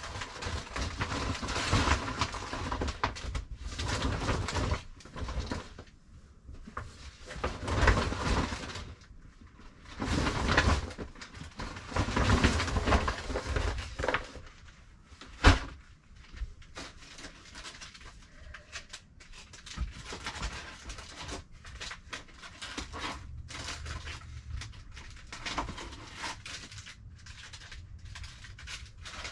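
Rustling and shuffling of plastic bags and cardboard boxes being handled, in bursts, with a single sharp knock about halfway through and lighter scattered clicks after it.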